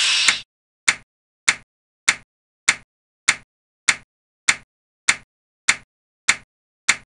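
Sound-effect clock ticks of a CPU-scheduling animation: a sharp click about every 0.6 s, each one a clock tick used by the running process. A hissing noise cuts off about half a second in.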